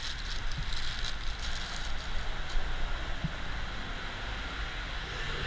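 Plastic bag crinkling as a spinning reel is pulled out of it, mostly in the first second or so, over a low steady rumble of wind on the microphone.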